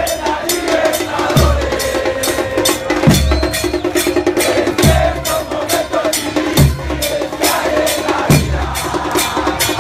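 A football supporters' drum band, with a bass drum thumping about every second and a half over fast steady beats, and the packed crowd chanting along.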